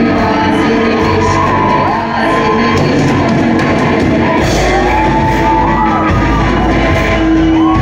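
Live rock band performing in a large hall: singers over electric and acoustic guitars and drums. A heavy low end comes in about halfway through.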